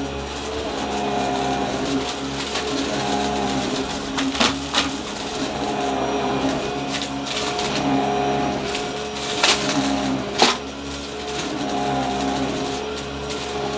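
Upright vacuum cleaner running, its motor tone swelling and easing in slow waves every few seconds. Debris crunches sharply as it is sucked up, several times around the middle.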